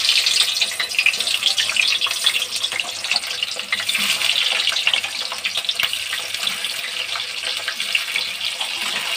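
Hot oil sizzling and crackling steadily around whole potatoes deep-frying in a kadhai, a little louder near the start as they go in.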